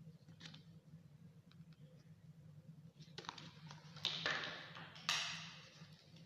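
Faint off-screen handling noise: a few soft clicks, then rustling with two sudden louder hissy rustles about four and five seconds in, each fading over a second, over a steady low hum.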